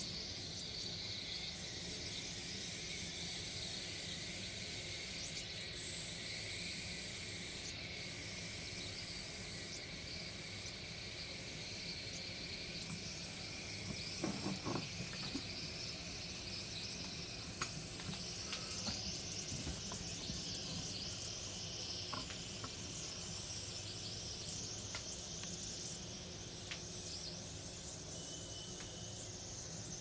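Faint fizzing and tiny crackles of air bubbles escaping from dry, chalky excavation blocks soaking in a bowl of water, over a steady hiss, with a short cluster of clicks about halfway through.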